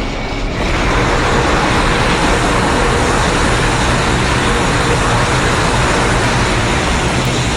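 Loud, steady rushing noise from a designed monster sound effect for the kaiju Titanus Shimu, holding level without a break.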